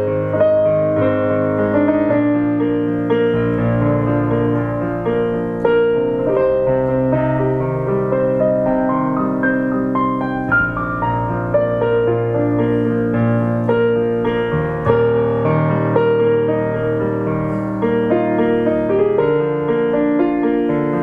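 Piano music played on a keyboard: slow held chords that change every second or so, with no drums.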